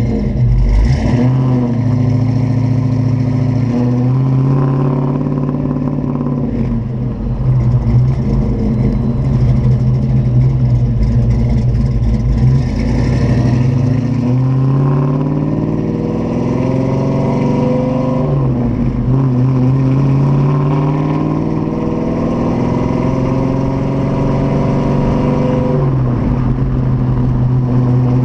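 1990 Ford Mustang 5.0's freshly built 311 ci small-block V8, with a Comp XE274HR cam and a BBK off-road H-pipe exhaust, running as the car is driven while the new engine is broken in. The revs climb gradually and drop back several times.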